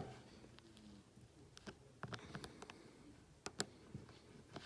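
Faint, scattered small clicks and light scrapes of a tool working against a Hot Wheels die-cast car's body as a plastic tab is pried out. The clicks come mostly in the second half.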